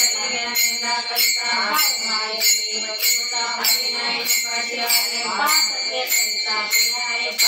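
Devotional bhajan singing to small hand cymbals (taal), struck in a steady beat about twice a second, each strike ringing on.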